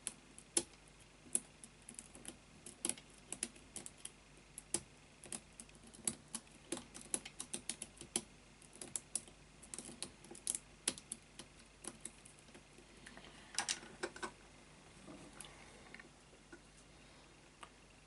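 Lock pick and tension wrench working the pins inside an Avocet padlock's keyway: irregular small metallic clicks, thinning out near the end.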